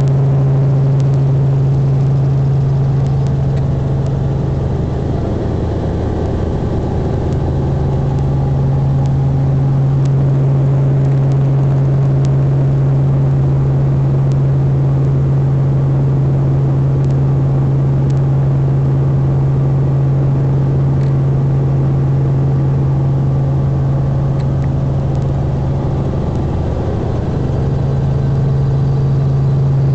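Helicopter in flight heard from inside the cabin: the engine and rotor make a loud, steady drone with a strong low hum, easing slightly twice.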